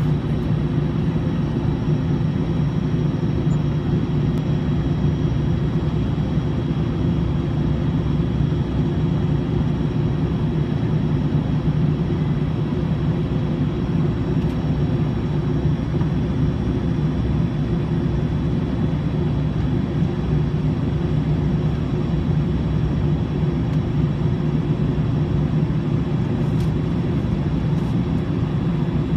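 Steady low rumble inside an Airbus A320's cabin on the ground, its engines at idle, with a faint steady high whine above it.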